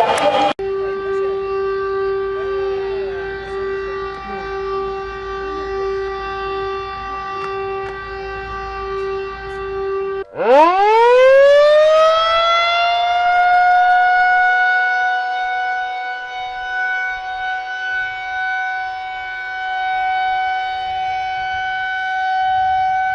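Warning siren in an emergency alert: a steady single-pitch tone holds for about ten seconds, cuts off, then a second siren winds up from a low growl into a higher steady wail and holds it.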